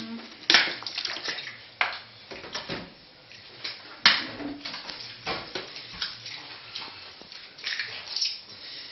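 Eggs being tapped and cracked open over a mound of flour on a hard countertop: a string of sharp knocks and clicks, the loudest about half a second in and about four seconds in, with smaller shell and handling clicks between. Paper rustles near the end.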